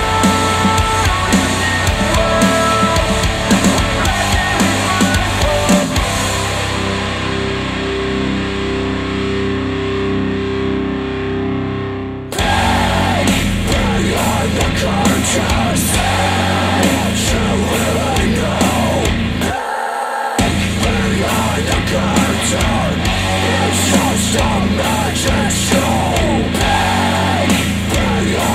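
Heavy rock music with guitars, played back through KEF R3 bookshelf speakers. About six seconds in the highs fall away for a filtered passage, and the full band comes back in abruptly about twelve seconds in.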